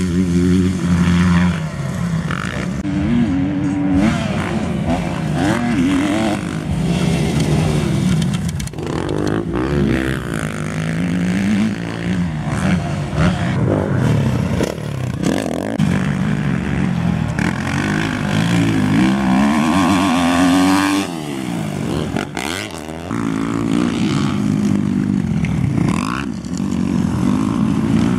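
Motocross dirt bike engines revving hard and dropping off again and again as the bikes accelerate, shift and back off, with one long climbing rev that falls away about three quarters of the way through.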